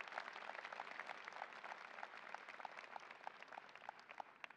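Audience applauding, many hands clapping at once, thinning and fading out toward the end.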